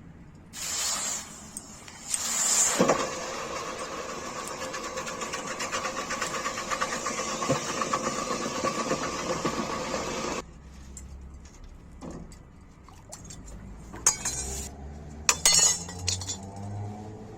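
A power tool gives a short burst, then starts again about two seconds in and runs steadily with a noisy, whining hum for about eight seconds before cutting off suddenly. A few sharp metal clinks follow near the end.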